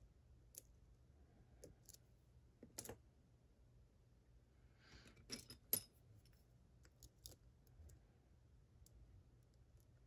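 Faint, scattered metal clicks of a lock pick and tension wrench working in the keyway of a Mottura Viper cylinder lock, with a quick cluster of sharper clicks just past the middle.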